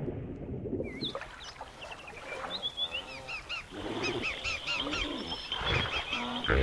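Birds calling: many short, repeated, overlapping calls that begin about a second in, after a brief dull low sound.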